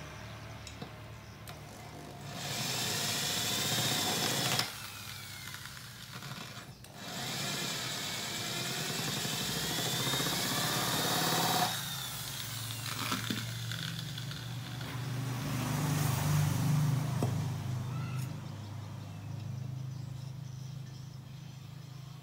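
Corded electric hand drill with a 10 mm bit boring out the oil-pump passage in a motorcycle clutch cover, run in two bursts with the motor whine rising and falling under load; the hole is being deepened to 10 mm.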